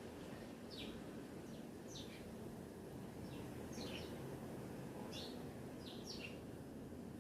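Songbirds chirping: short, high chirps sweeping downward in pitch, repeated about once a second and sometimes in quick pairs, over a steady low background rumble.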